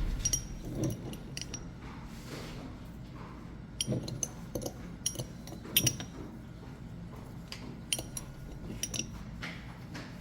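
Light clinks of a spoon against glassware, about a dozen short ringing taps scattered irregularly, as bread-dough ingredients are measured and stirred.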